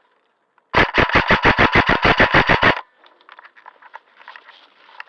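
Airsoft gun firing one long full-auto burst close by, about sixteen rapid shots at roughly eight a second for about two seconds. It is followed by fainter scattered pops and clicks of gunfire further off.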